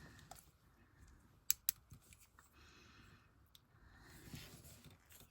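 Faint clicks and taps of small nail polish bottles being handled, with two sharper clicks about a second and a half in; otherwise quiet.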